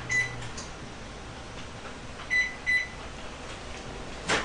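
Microwave oven's control panel beeping as its buttons are pressed: a beep as the oven's running hum cuts off, then two more short beeps about two seconds in, and a sharp click near the end. The oven is being stopped mid-cycle because the chocolate inside smells burnt.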